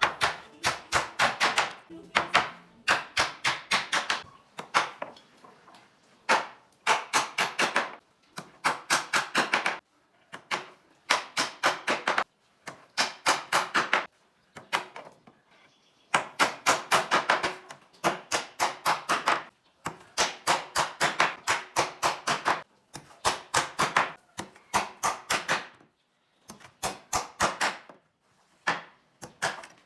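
Hammer blows on wood in quick runs of about six strikes a second, each run lasting a second or two, with short pauses between runs.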